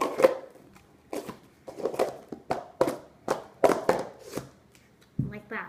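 Red plastic cups clacking as a cup-stacking pyramid is down-stacked: the cups are slid over one another into a single nested column and knocked down on a stone countertop. About a dozen sharp clacks come in an uneven, quick series.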